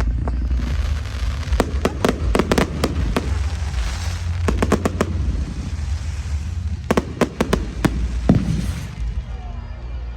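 Fireworks display: clusters of rapid sharp bangs and crackling reports, with a low rumble underneath throughout.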